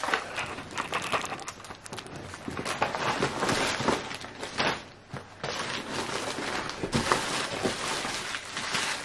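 Clear plastic bags crinkling and rustling as items are rummaged through and pulled from a packed suitcase, with a short lull about halfway.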